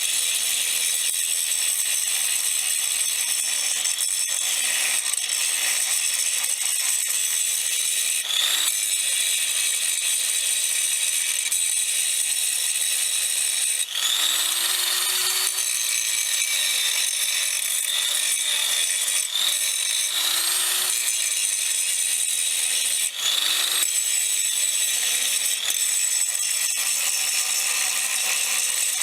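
A small power tool running continuously with a high whine and a rasping edge. Several times its pitch bends up and back down as it is worked against the piece.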